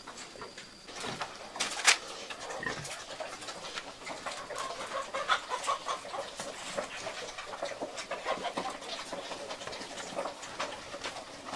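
Farmyard animals calling in short repeated bursts, with scattered knocks and clatter and one sharp loud knock about two seconds in.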